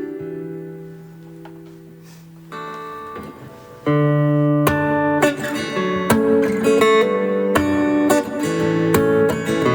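Martin LXK2 Little Martin small-bodied acoustic guitar being played: a chord is left ringing and fades, then the playing comes back in loud and full about four seconds in.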